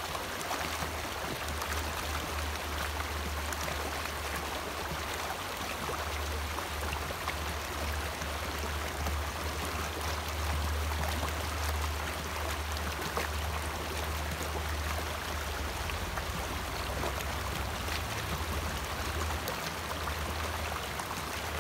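Shallow, rocky creek running over stones in a steady rush of water. A low rumble comes and goes underneath.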